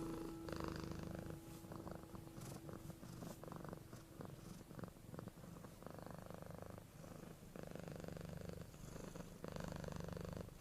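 A cat purring quietly, in rough swells about a second long with short gaps between them.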